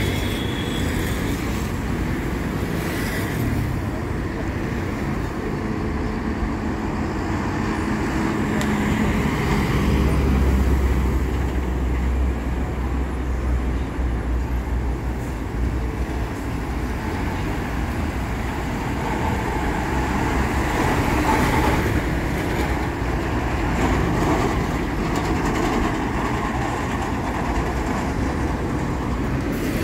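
City street traffic with buses' diesel engines running and passing, a steady rumble throughout. About a third of the way in, a deep engine drone swells up close for some five seconds, then fades back into the traffic.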